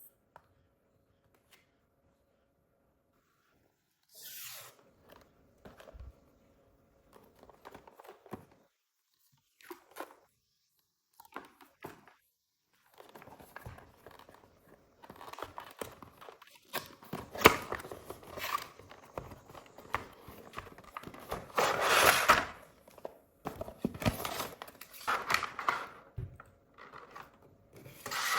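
Packaging being handled: intermittent tearing and crinkling of paper or plastic, sparse at first and becoming busier and louder in the second half, with the loudest tear about two-thirds of the way through.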